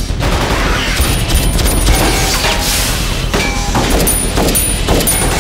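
Automatic rifle fire in a film's action soundtrack, a loud, dense din of shots.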